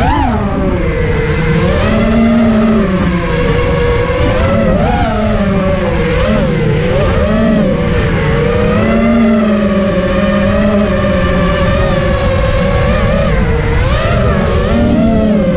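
FPV racing quadcopter's motors and propellers whining continuously, the pitch swooping up and down as the throttle changes in flight, heard close from the drone's onboard camera over a low rumble of rushing air.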